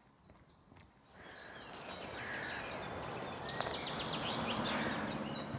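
Birds chirping outdoors, a busy run of short high calls starting about a second in, over a steady background hiss.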